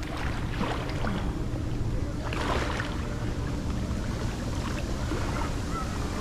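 Wind buffeting the microphone with a steady low rumble, over the wash of waves at the river's edge, with irregular splashes, the strongest a little over two seconds in.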